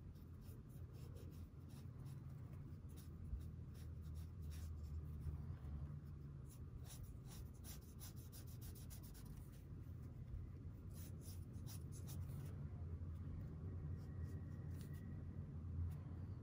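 Ink brush pen's bristles scratching across MÅLA drawing paper in short, irregular strokes, over a low steady hum.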